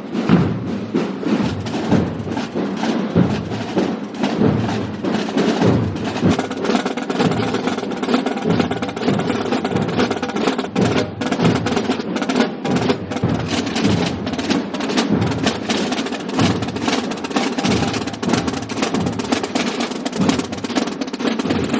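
Many drums played together by a band of drummers, a dense, continuous drumming of overlapping strokes.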